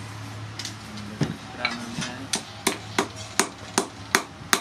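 Hand hammer striking red-hot spring steel on an anvil, a run of sharp metallic blows at about three a second beginning about half a second in. A steady low hum sits underneath.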